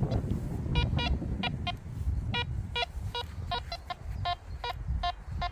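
Quest Q30+ metal detector sounding a run of short beeps as the coil sweeps back and forth over a target. The pitch jumps between a lower and a higher tone, a mixed, uncertain signal. A low rumble runs underneath.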